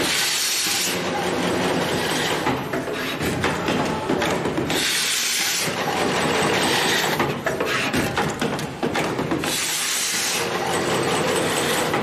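Automatic ribbon cable cut, strip and crimp machine cycling: a steady mechanical clatter of rapid clicks and rattles, broken three times, about every five seconds, by a second-long hiss of compressed air from its pneumatic parts.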